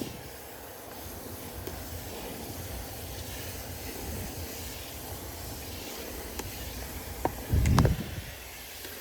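Water from a garden hose hissing steadily as it sprays onto a plant and the soil, with one low thump near the end.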